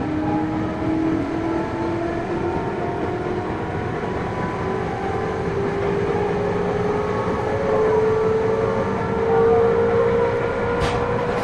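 Running sound of a JR 221 series electric train, heard aboard motor car KuMoHa 221-55: the traction motor and gear whine rises steadily in pitch as the train picks up speed, over a continuous rumble of wheels on rail. A single sharp click comes near the end.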